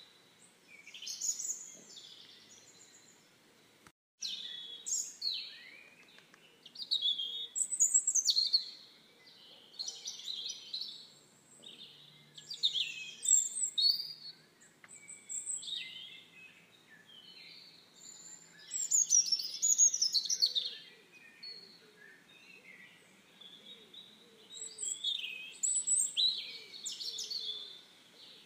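Songbirds singing: repeated short phrases of high chirps and trills, one phrase every second or two.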